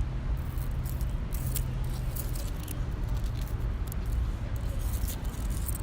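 Steady low background rumble with scattered faint clicks and ticks.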